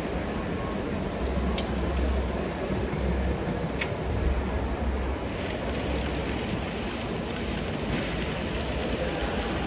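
Steady rushing background noise with low rumbling that swells and fades every second or two, and a few faint clicks.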